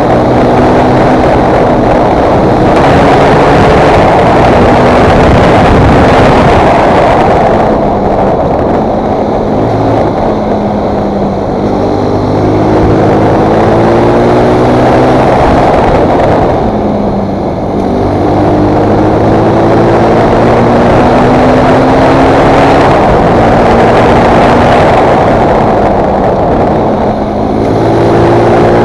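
Fantic Performance 125 motard's four-stroke single-cylinder engine under acceleration, its pitch climbing through the revs and dropping back at each upshift, several times over.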